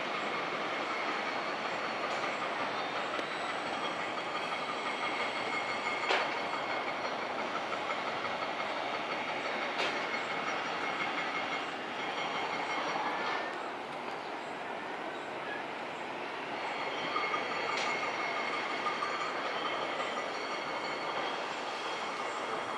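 Train running on the rails, its wheels squealing with steady high ringing tones over the rumble. The squeal fades away for a few seconds mid-way and comes back, with a few sharp clicks from the track.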